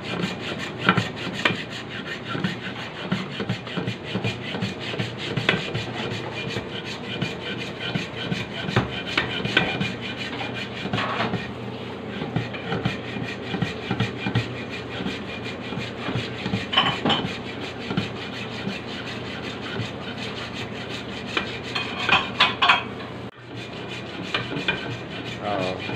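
Hand hacksaw cutting back and forth through a very hard, thick block, a steady run of sawing strokes with a brief break near the end.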